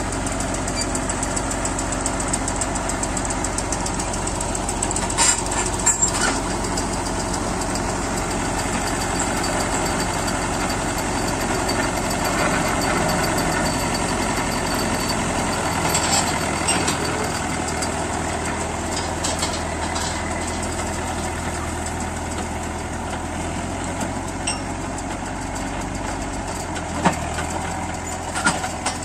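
Massey Ferguson tractor engine running steadily as the tractor pulls a forage harvester and wagon, with a few sharp clanks from the hitched machinery.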